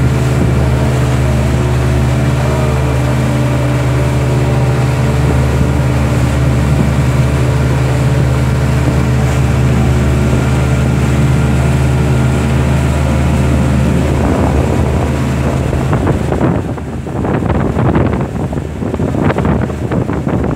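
Mercury outboard motor running steadily at speed under tow load, over the rush of water from the hull and wake. About 14 seconds in the engine's steady tone falls away and gusty wind buffets the microphone.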